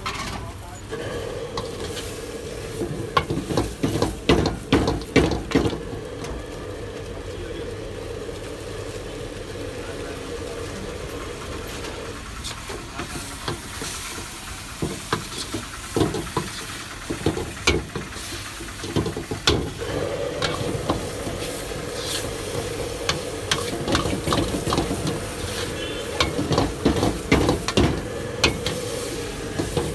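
Metal ladle scraping and clattering against an iron wok in three bursts as momos are tossed in sauce, over food sizzling and a steady hum that drops out for several seconds midway.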